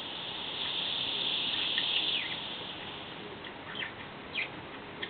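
Sleeping Shih Tzu breathing noisily through its nose between snores: a long hissing breath over the first two seconds, then a few short, high, falling squeaks.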